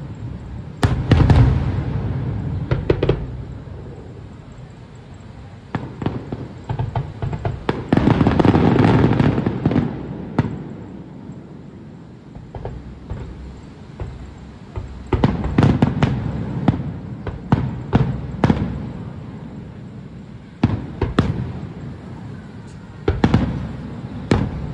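Fireworks display: aerial shells bursting in irregular bangs, each followed by a low rumble. About eight to ten seconds in there is a dense run of rapid bangs and crackle, and later come quick clusters of several bangs.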